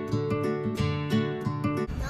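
Background music: a strummed acoustic guitar playing chords in a steady rhythm of about four strokes a second, cut off just before the end.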